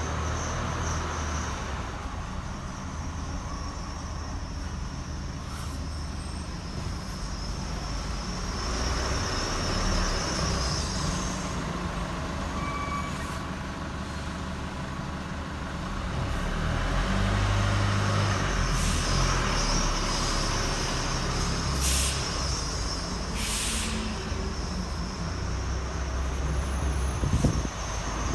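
2016 Chevy Colorado's driveline squeaking at low speed, a high squeal that comes and goes over the truck's low running and road rumble. The squeak comes from where the driveshaft enters the transfer case, a fault at low speed around 5 mph.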